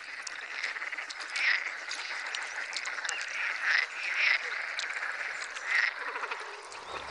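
Frogs croaking in a wetland chorus, with a handful of louder calls standing out over a steady background of calls.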